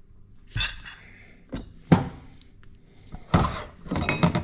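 Heavy cast turbine housing of a Holset HE351 turbo being handled and set down on a metal-topped workbench. It gives a few dull knocks, the sharpest a little under two seconds in.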